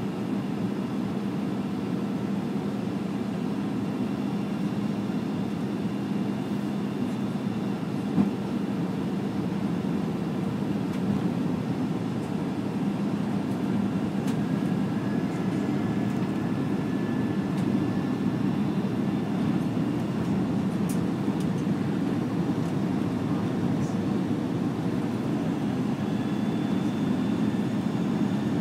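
Steady cabin noise of an Airbus A319 airliner descending to land, heard from a window seat beside the wing-mounted jet engine: an even rumble with a low hum, and faint high whines in the second half. A single sharp click about eight seconds in.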